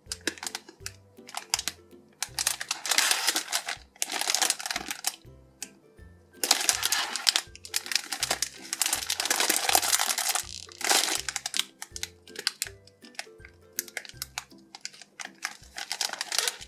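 Crinkling of a thin plastic packaging bag as hands squeeze and turn a foam squishy inside it, in bursts of crackle, some long and some short. Background music with a steady bass line plays underneath.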